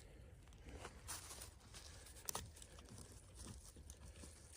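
Near silence: faint rustling outdoors with one light click about two seconds in.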